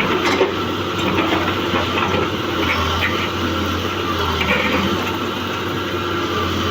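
Excavator engine running steadily, a constant low hum.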